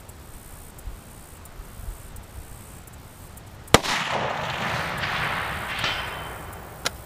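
A single shot from a Tikka T3X Lite .308 bolt-action rifle nearly four seconds in, followed by a long echo that dies away over about three seconds.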